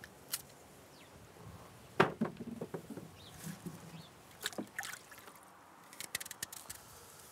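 Apples being handled and taken out of a wooden crate: scattered knocks and clicks of fruit against fruit and wood, with a sharper knock about two seconds in and a quick run of light clicks near the end.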